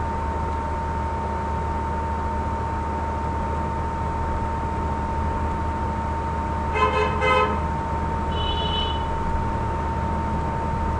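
A steady low hum with a thin, steady whine, as of recording noise. About seven seconds in come two short pitched toots, then a brief high beep about a second and a half later.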